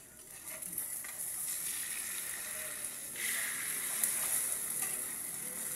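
Eggs frying in hot oil in a pan: a steady sizzle that swells about three seconds in as the egg is lifted and folded over with a spatula.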